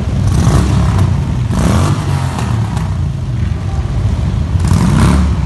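A parade of motorcycles, mostly Harley-Davidson V-twins, rumbling past in a continuous stream. The sound swells louder three times, about half a second in, about two seconds in and near the end, as bikes rev and pass close.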